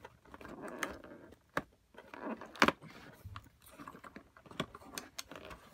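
Fingernails picking and scratching at a perforated cardboard door of a Kinder Mix advent calendar: scattered small clicks and scrapes of cardboard, with one sharper snap a little past halfway as the door is worked loose.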